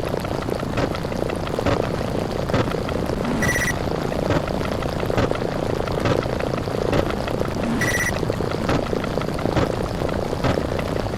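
Stacked counting sound effects, among them an explosion effect, retriggered so fast that they blur into a steady rumbling roar full of tiny clicks. A short, high electronic beep cuts through twice, about four seconds apart.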